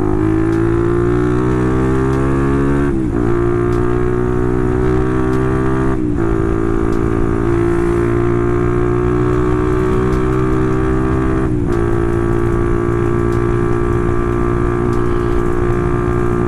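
Motorcycle engine through an aftermarket exhaust with a half baffle, ridden under way: the engine note climbs steadily and drops sharply at upshifts about three, six and twelve seconds in.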